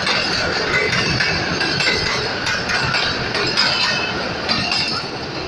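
Passenger train coaches passing at speed: steel wheels clattering on the rails with rapid metallic clinks and high squealing rings. The sound eases off near the end as the last coach goes by.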